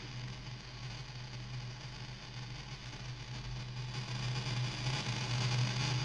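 DIY Muscarin analog noise synthesizer putting out a distorted drone: a steady low tone under a layer of hiss. It grows louder over the last couple of seconds as the knobs are turned.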